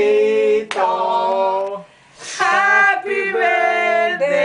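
A group of men and women singing a birthday song together without instruments, with a short break about two seconds in.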